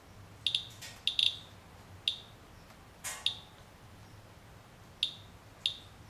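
Inspector Geiger counter chirping once for each detected count: short high beeps at irregular, random intervals, about nine in all, some in quick pairs or triplets. A sheet of metal over the sample is meant to stop the beta, so the counts are what gets through it. A soft knock comes about three seconds in.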